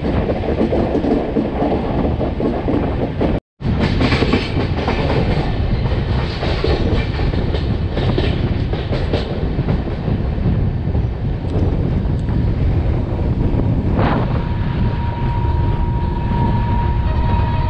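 Durg Humsafar Express running at speed: a steady rumble of the coaches with wheel clatter over the rail joints. The sound cuts out for a moment about three and a half seconds in. A steady high tone joins near the end.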